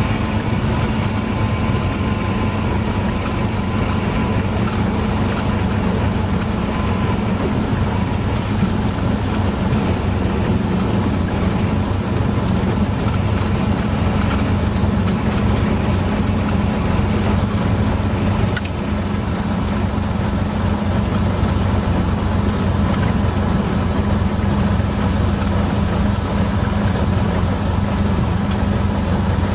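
Cessna 172's Lycoming four-cylinder piston engine and propeller running at a steady drone in the cabin, with no change in pitch or level.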